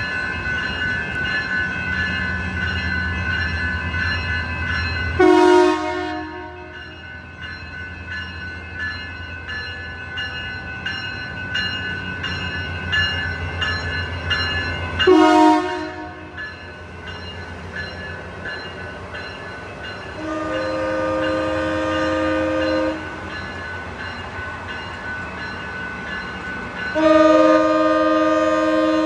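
Train horn sounding over the steady hum and whine of a train: two short blasts about ten seconds apart, then a held chord of several notes lasting nearly three seconds, and another held blast starting near the end.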